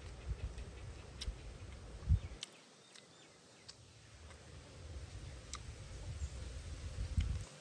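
A person chewing a mouthful of cooked red ants, with a few sharp crunchy clicks over a low rumble that drops away about two and a half seconds in and again near the end.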